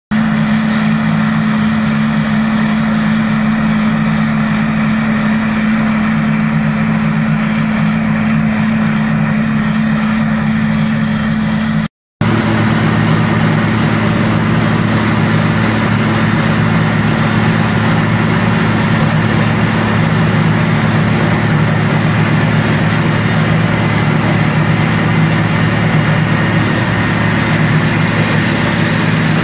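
Caterpillar RM-500 rotary mixer's diesel engine running steadily under load, a constant low drone, with the dense grinding and rattle of its rotor cutting and mixing gravelly road base in the mixing chamber. The sound breaks off briefly about twelve seconds in, then resumes the same.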